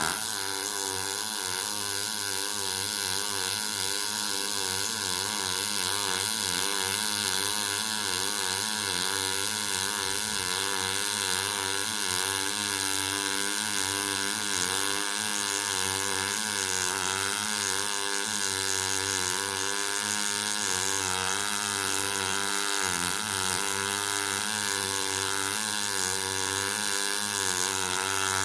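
MIG welding arc from a Decapower UltraMIG-230 Expert double-pulse welder, burning steadily as a bead is laid. It makes a constant buzz with a slightly wavering pitch and a hiss above it.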